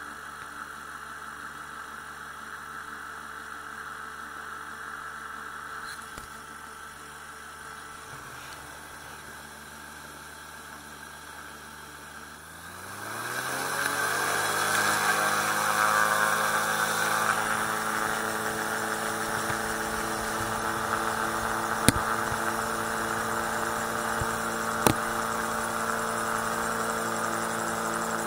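Magni M16 autogyro's engine and propeller running steadily at low revs, then about halfway through revving up smoothly to a higher, louder steady speed. Two short sharp clicks sound near the end.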